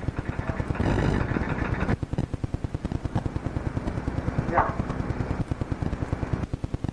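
Rapid, even mechanical clicking, about ten clicks a second, running steadily, with a short rising whistle-like tone about four and a half seconds in.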